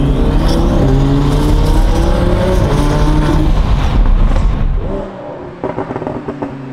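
Twin-turbocharged Audi R8 V10 accelerating hard, heard from inside the cabin, its engine note climbing in pitch and dropping at upshifts. Near the end it is heard from outside, quieter, with a quick string of sharp pops from the exhaust.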